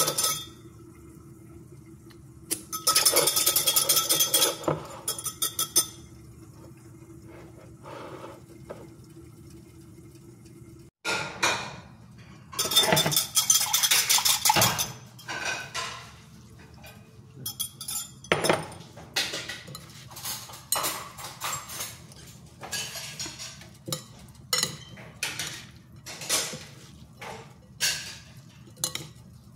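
A wire whisk rattles against the sides of a measuring jug in short bursts as a dressing is whisked. After a break, the dressing is poured and scraped out onto the salad. Then metal utensils toss the salad, clinking and scraping against a glass bowl about once a second.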